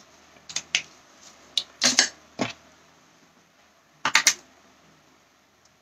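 Desk handling noise as a pen is picked up: a scattering of short, sharp clicks and taps over the first couple of seconds, then a quick group of three clicks a little after four seconds.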